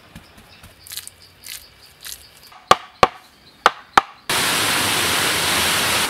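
Hand-tool work on wood and bamboo: faint knocking, then four sharp knocks in quick succession. From about four seconds in, a steady rush of splashing water takes over.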